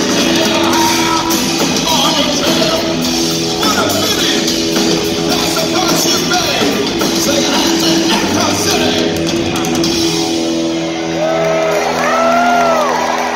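Rock band playing live, with drums, electric guitar and bass under a shouted lead vocal, heard from the crowd in a large hall. Near the end, two tones swoop up and back down over the band.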